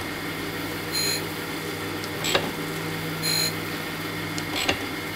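Jones and Shipman 540 surface grinder running with flood coolant, its wheel grinding a thin steel vise jaw: a steady machine hum, with a short click and a brief high hiss alternating about every second and a quarter as the work passes back and forth under the wheel.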